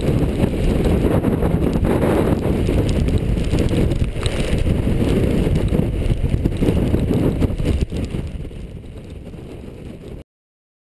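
Heavy wind buffeting the microphone in a squall aboard a small sailboat, mixed with the rush of wind and sea. It eases about eight seconds in and cuts off suddenly near the end.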